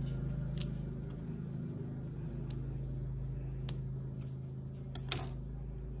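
Fingers and fingernails picking at a bath bomb's wrapping to open it: scattered small clicks and crinkles, the sharpest about five seconds in, over a steady low hum.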